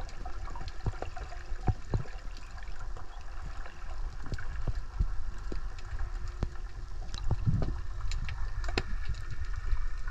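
Underwater ambience recorded beneath the sea surface: a steady low rumble of moving water with many scattered sharp clicks and crackles.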